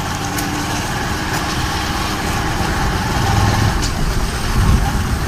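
Motorcycle riding along a lane: engine running with wind and road noise, a little louder in the second half.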